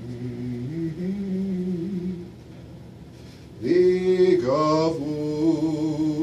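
A man chanting Orthodox liturgical vespers chant solo: held notes that step in pitch for about two seconds, a short pause, then a new sung phrase that slides up and is held.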